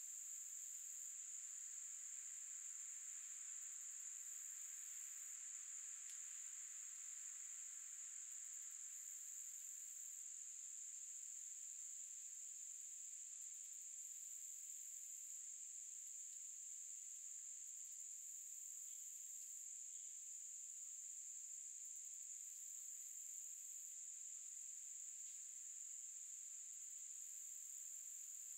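Faint summer insect chorus: a steady, high-pitched shrill trill. A second, even higher insect song comes in short bursts of about a second and a half, every four to five seconds.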